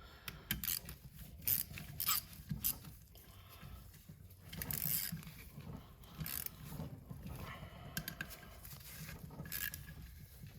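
Hand tools working on a turbocharger's cover bolts: irregular ratchet clicks and metal scrapes as the bolts are snugged down one after another.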